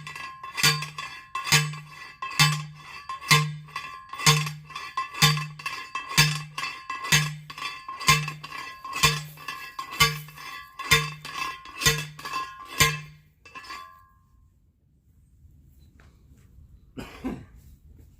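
Steady hammering on metal, about one ringing strike a second, each with a short low thud; the strikes stop about three-quarters of the way through.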